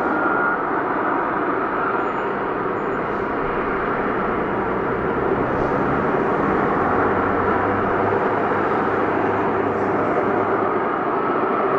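Lockheed Martin F-35B Lightning II jet hovering: a loud, steady jet roar from its engine and lift fan, holding level throughout.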